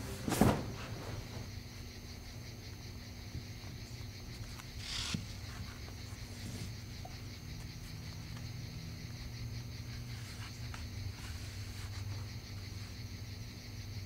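Low steady hum with a faint, constant high insect-like drone over it; a sudden thump about half a second in and a short rustling hiss around five seconds in.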